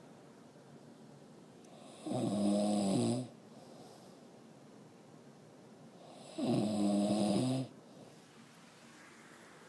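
A sleeping man snoring: two loud snores, each about a second long, roughly four seconds apart.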